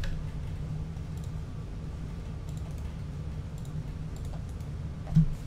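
A few faint, scattered computer keyboard and mouse clicks over a steady low hum, with a slightly louder click near the end.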